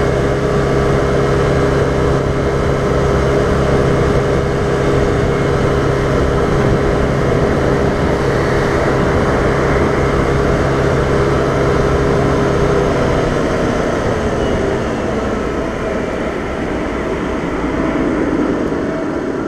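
Vespa scooter's engine running at a steady cruising speed under heavy wind and road rush, then falling in pitch about two-thirds of the way through as the scooter slows down.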